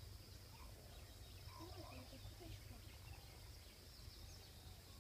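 Near silence: faint wild ambience, with a few short distant bird calls about one to two seconds in over a steady high insect hum and a low rumble.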